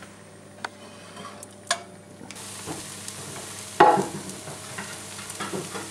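Grilled omelette sizzling in a hot cast iron skillet, the hiss starting about two seconds in. A few sharp clicks come before it, and a loud metal clatter of pan and spatula comes near the middle.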